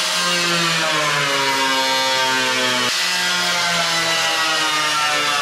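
Angle grinder with a cutting wheel cutting into a steel car hood: a steady high whine whose pitch sags as the wheel bites into the metal, picking back up about three seconds in and sagging again.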